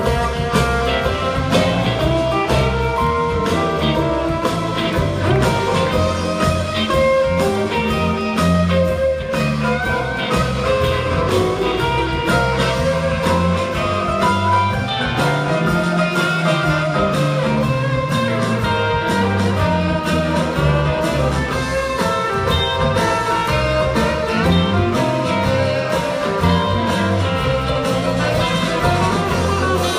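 Live band playing an instrumental passage, with mandolin and acoustic and electric guitars over bass and drums, heard from the audience.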